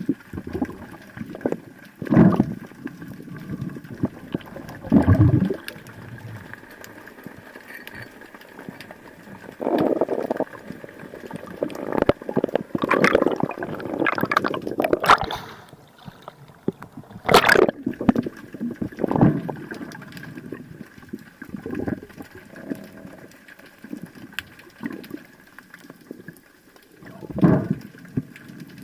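Water gurgling and rushing in irregular surges, heard through an underwater camera, over a faint steady high tone.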